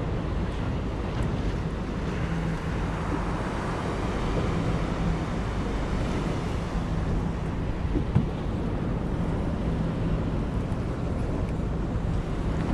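Fishing boat under way: wind buffeting the microphone over rushing water, with a steady low motor hum underneath.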